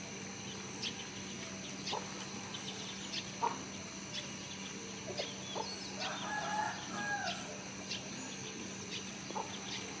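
A rooster crows once about six seconds in, the call lasting over a second, against a steady high whine and scattered short chirps.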